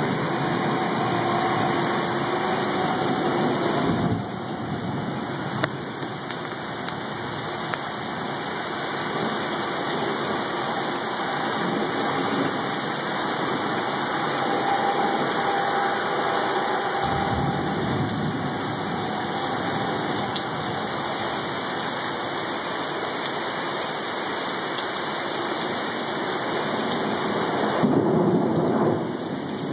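Heavy rain pouring down steadily during a thunderstorm, with thunder.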